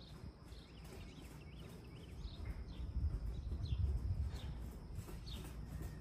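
A horse's hoofbeats on sand arena footing as it comes closer, over a low rumble. A bird gives short falling chirps over and over.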